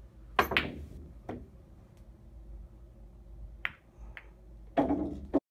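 Pool balls clacking on a pool table: several sharp, separate clicks, then a louder, longer knock near the end that cuts off suddenly.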